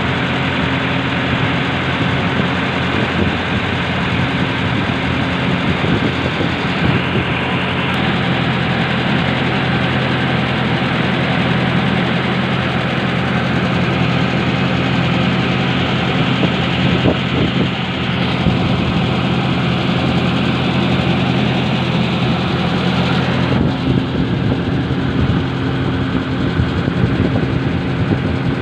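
A fishing boat's engine running at a steady pace: a continuous mechanical drone.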